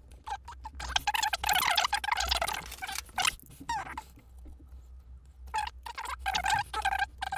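A blade cutting through foam padding beside a screw on a cassette deck's metal front panel: a run of short, squeaky scraping strokes, with a pause about halfway through before the strokes resume.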